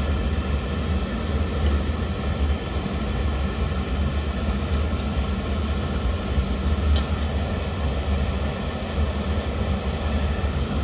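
Oil burner firing, with a steady roar from its burner motor, blower and flame and a low hum underneath. A faint click about seven seconds in.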